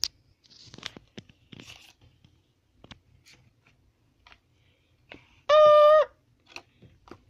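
Light rustling and clicking of a cardboard box and a small plastic toy being handled, then a single loud beep with a steady pitch, lasting about half a second, about five and a half seconds in.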